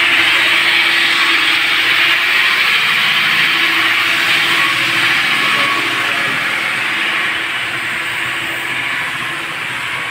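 Stone-cutting machinery running with a steady, high-pitched rushing noise that slowly gets quieter.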